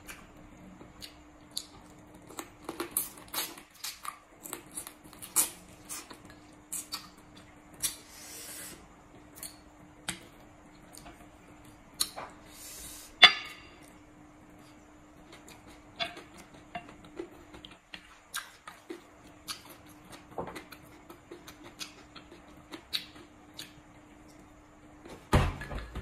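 Close-miked eating sounds: chewing, smacking and slurping of papaya salad and noodles taken with wooden chopsticks, heard as many sharp clicks and a few short slurps. A faint steady hum runs underneath, and there is a heavier low knock near the end.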